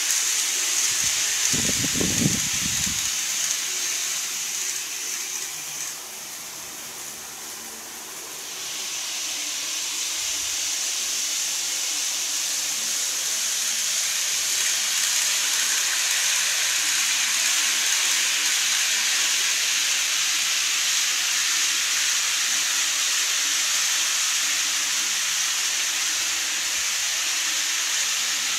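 Steady high hiss of N-gauge model trains running on the layout's track, with a brief low thud about two seconds in and a quieter stretch from about six to eight seconds in.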